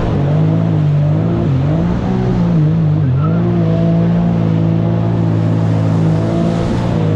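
Jet ski engine running hard at speed, its note dipping twice in the first three seconds and then holding steady, over a steady hiss.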